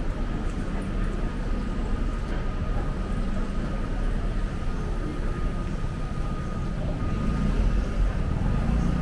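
Steady low rumble of city street traffic, with a thin, steady high whine running under it.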